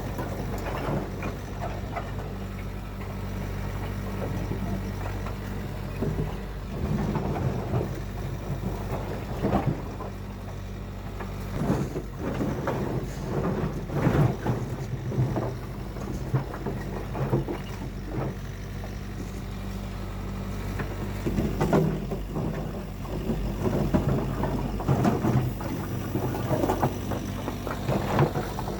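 An engine running steadily throughout, with irregular knocks and clattering from work going on alongside it.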